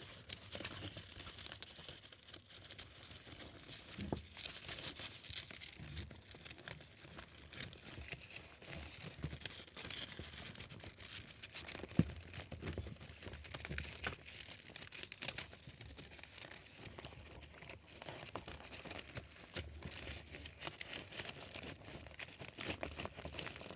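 Fabric grid of a Ulanzi octagonal softbox rustling and crinkling as it is handled and pressed onto its Velcro edging, with scattered light clicks and one sharper click about halfway through.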